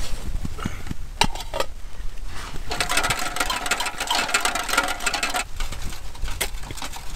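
Handling noise from camping cooking gear being moved about: a couple of sharp clicks, then a longer stretch of rustling and scraping.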